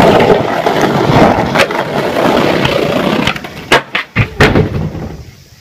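Skateboard wheels rolling loudly over rough asphalt for about three seconds, with a clack about one and a half seconds in. Then come several sharp clacks and slams a little under a second apart as the board and skater hit the pavement in a bail.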